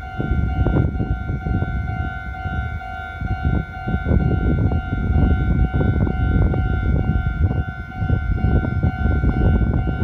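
Japanese railway level-crossing warning bell sounding steadily: an electronic alarm in two steady tones with a fast, even ding-ding beat, rung while the barriers are down for an oncoming train. A heavy, uneven low rumble lies underneath.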